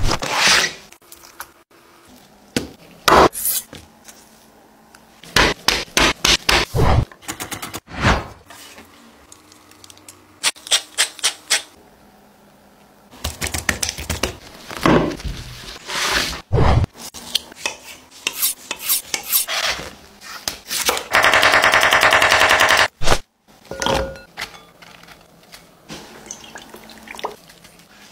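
Kitchen food-prep sounds: raw chicken pieces handled in a plastic tray and rubbed with seasoning in a metal tray, with clicks, knocks and scrapes against the containers. About three-quarters through comes a steady two-second stretch of fine, rapid clicking.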